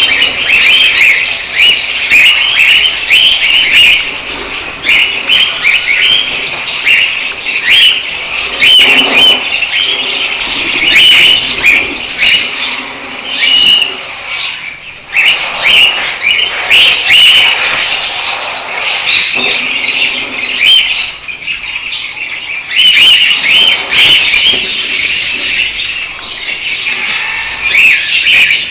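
Budgerigars chattering: a dense, continuous stream of short chirps and warbles.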